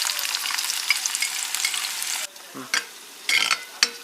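Chopped onion sizzling and crackling in hot oil with mustard seeds and green chillies. About two seconds in, the sizzle drops abruptly to a quieter hiss, and a few short spatula scrapes against the pan follow.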